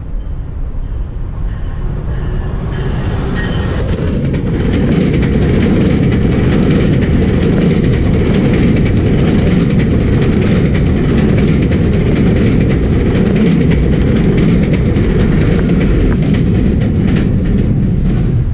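GO Transit commuter train of bilevel coaches passing close at speed. It builds over the first few seconds as it approaches, then holds as a steady, loud rush of steel wheels on rail with rapid clickety-clack, and drops off at the end as the last car goes by.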